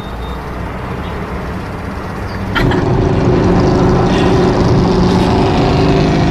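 Motor vehicle engine running steadily, stepping up in loudness about two and a half seconds in and then holding a steady drone.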